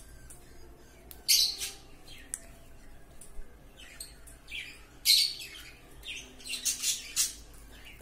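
Cockatiels giving short, harsh chirps: one about a second in, a few around five seconds, and a quick cluster near seven seconds.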